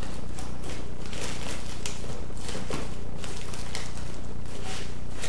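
Irregular crinkling and rustling of plastic sheeting and aluminium foil as a foil-and-tape sculpture armature is handled and shifted on a plastic-covered table, over a steady low hum.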